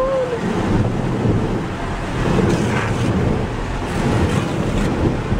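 Automatic car wash working over the car, heard from inside the closed cabin: a loud, churning rush of water spray and washing equipment against the body and windows.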